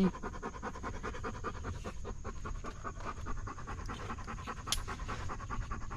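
Dog panting rapidly and steadily close to the microphone, several quick breaths a second.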